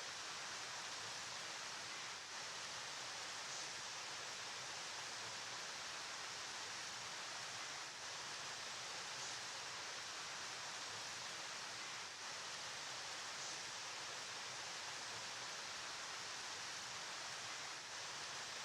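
Flowing river water making a steady, even hiss, strongest in the upper range, with no separate splashes or events.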